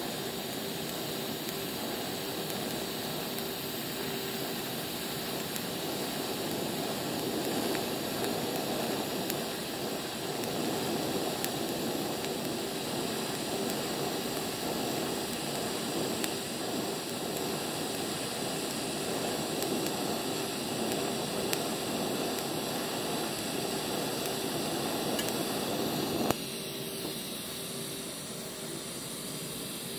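TIG welding arc from an Eastwood TIG200 AC/DC welder laying a bead on steel, a steady hiss and buzz. The arc cuts off suddenly about 26 seconds in, leaving a fainter hiss.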